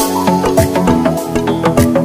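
Background music with a quick, steady beat under a melody of short pitched notes.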